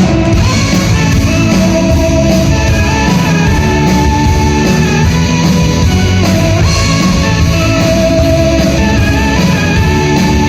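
A rock band playing loud, heavy music, with electric guitars and drums.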